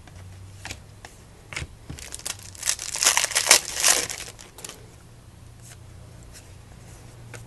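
Plastic trading-card pack wrapper crinkling and tearing as a pack is opened: a few single crackles at first, then a dense stretch of crinkling about two and a half seconds in lasting a couple of seconds, then a few more crackles.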